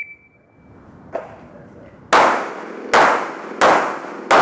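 Four pistol shots from a Smith & Wesson M&P, the first about two seconds in and the rest roughly every 0.7 s, each with a short echoing tail. The tail of the shot timer's start beep fades out at the very start.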